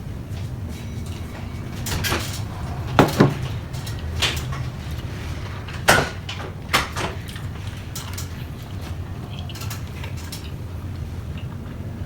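Close-up eating sounds: a handful of sharp crunches and clicks, the loudest about three and six seconds in, over a steady low hum.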